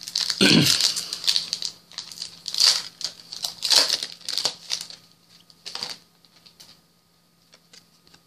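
Foil trading-card booster pack being torn open, its wrapper crinkling in irregular crackling rustles that die away near the end.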